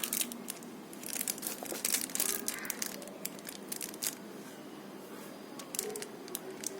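Packaging being handled and opened by hand: crinkling and rustling with scattered small clicks, busiest between about one and three seconds in.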